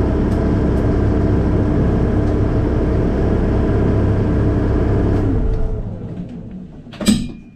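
Fat Truck amphibious all-terrain vehicle's engine running steadily, heard from inside its cab, then shut off about five and a half seconds in and running down. A sharp loud knock follows near the end.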